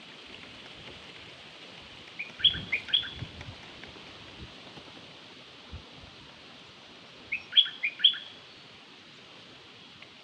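A bird's call: a quick phrase of about four chirped notes, given twice about five seconds apart, over a steady hiss. A soft low thump falls between the two phrases.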